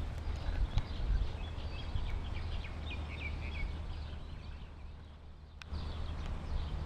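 Steady low outdoor rumble of wind on the microphone, with a small bird chirping a quick run of high notes in the background for a couple of seconds near the middle.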